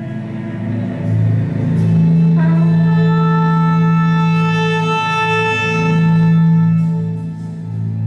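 Live chamber ensemble music: two violins bowing long held notes, with a trumpet, over a steady low held note. A new higher note comes in about two and a half seconds in.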